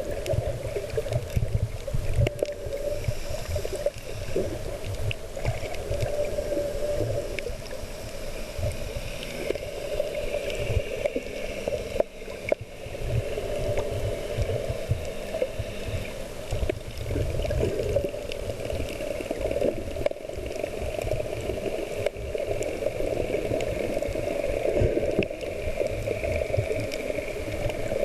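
Water sloshing and gurgling against a boat at anchor, with a steady gusting rumble of wind on the microphone.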